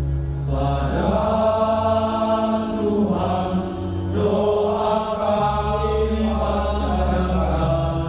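Soundtrack music: a patriotic Indonesian military song, with voices holding long sung notes over a steady low bass drone.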